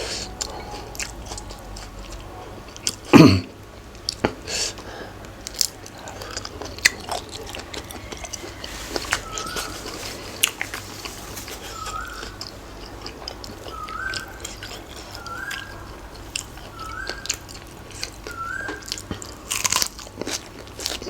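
Close-up biting and chewing of crunchy food (spicy pounded salad with cuttlefish and raw vegetables), with wet mouth clicks and crackles. A loud low thump comes about three seconds in. From about nine seconds, a faint short rising chirp repeats roughly every second and a half.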